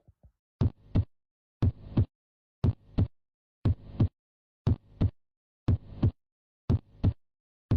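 Recorded heart sounds: lub-dub pairs about once a second. A fainter noisy sound fills the gap between the first and second sound of each pair, a systolic murmur.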